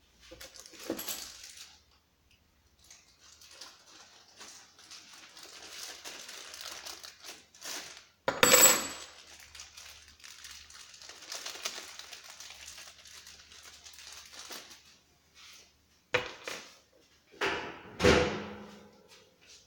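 Handling noises from unpacking a chainsaw: stretches of rustling, with a sharp clatter about eight seconds in and a few knocks near the end.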